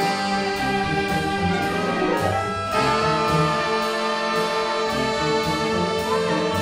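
Instrumental background music with sustained brass-like chords over a steady beat.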